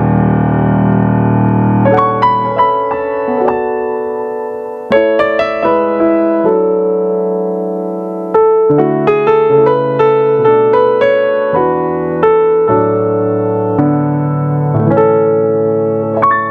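Yamaha Arius YDP-164 digital piano playing a slow passage. A held chord dies away, then single notes and chords are struck and left ringing into one another, with fresh chords about 5 and 8 seconds in.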